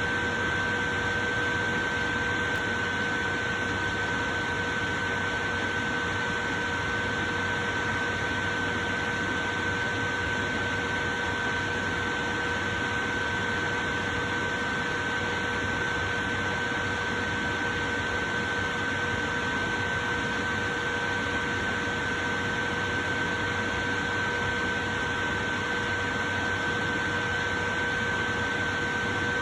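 A portable electric fan running steadily: an even rush of air with a constant high whine over it.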